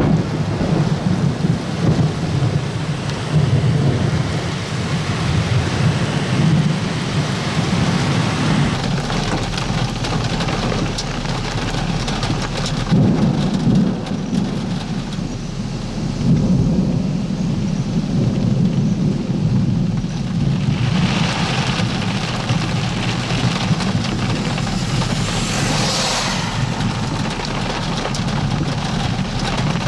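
Torrential tropical-storm rain with a heavy, uneven low rumble underneath. The rain hiss swells twice in the second half.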